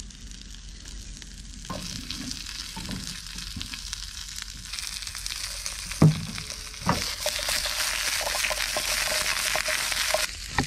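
Asparagus and other vegetables sizzling in a frying pan on a portable gas stove; the sizzle starts a couple of seconds in and grows louder about halfway through. Two knocks of the pan come about a second apart, the first the loudest sound, before the sizzle stops suddenly near the end.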